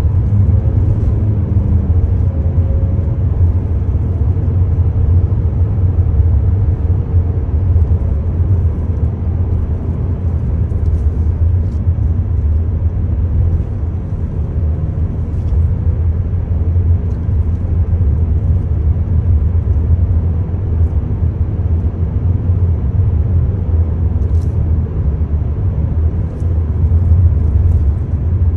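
Steady low rumble of a car's tyres and engine, heard from inside the cabin while driving along the road.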